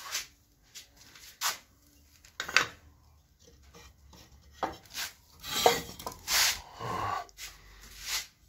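Bricks being handled and fitted into a gap in a brick wall: about ten short, irregular scrapes and knocks of brick against brick and masonry, the loudest run from about five to seven and a half seconds in.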